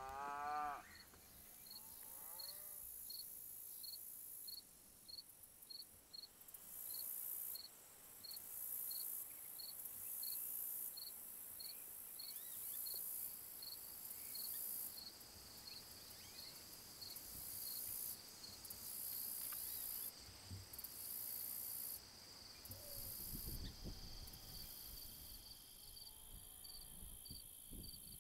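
A cow moos once at the very start. Then insects chirp steadily: one chirps regularly about twice a second, over a very high, shrill trill that starts and stops in stretches of a second or two. Low, uneven rumbles come in near the end.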